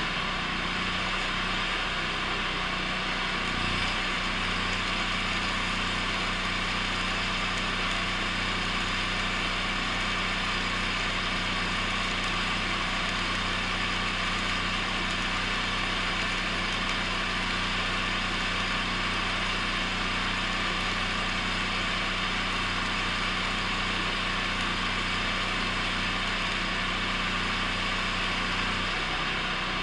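Steady crackle of a 6010 stick-welding arc running a bead on steel I-beam, over the low hum of the welding machine, which drops out near the end.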